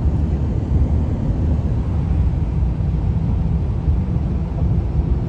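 Steady low road and engine rumble inside a moving vehicle's cabin.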